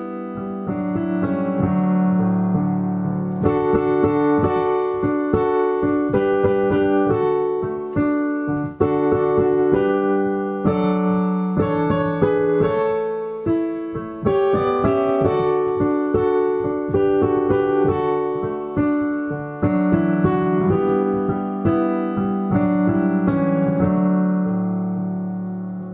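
Piano music, chords and melody notes played one after another, fading out near the end.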